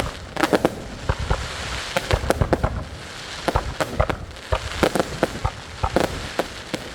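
Fireworks going off: a dense run of sharp bangs and pops in irregular clusters, over a continuous crackle.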